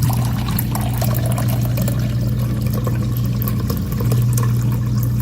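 Whirlpool side-by-side refrigerator's door dispenser running water into a container, with a steady low hum that starts as dispensing begins. Water is being run through to flush a newly installed water filter.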